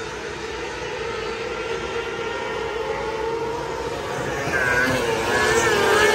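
A pack of 600cc micro sprint cars racing on a dirt oval. Their high-revving motorcycle engines wail together, rising and falling in pitch through the turns, and grow louder about four and a half seconds in as cars come past close by.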